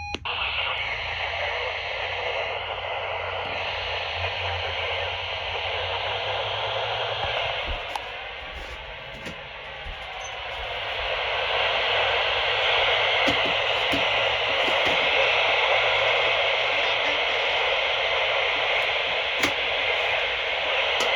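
Radio static: a steady hiss from a radio receiver with no signal coming through, growing a little louder about halfway through, with a few faint clicks.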